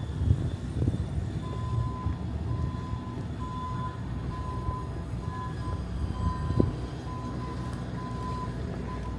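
City street traffic rumbling at a wide intersection. From about a second and a half in, a single-pitched electronic beep repeats, roughly one and a half times a second, with a short knock near the end.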